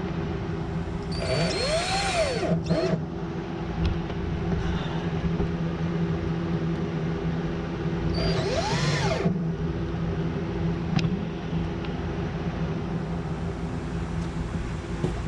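Cordless drill/driver run in two short bursts, each whine speeding up and winding down, as it fastens the autopilot control unit to the wooden bulkhead. A steady low hum runs underneath.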